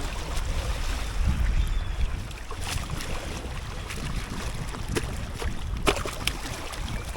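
Wind rumbling on the microphone out on open water, with a few sharp knocks in the second half, the loudest near the end.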